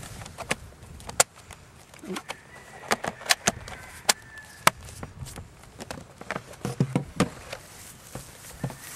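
Irregular sharp plastic clicks and knocks, a dozen or so over several seconds, as a laptop battery is pushed back into its bay and the laptop is handled.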